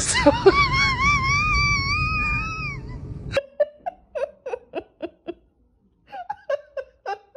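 A dog howls in one long, wavering high note that slides down and stops about three seconds in. Then, after a sudden cut, comes a person's soft laughter in short breathy pulses, in two runs.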